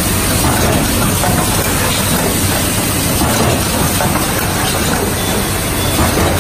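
Hand towel tissue converting machinery running: a loud, steady mechanical noise with a fast, dense clatter over a low hum.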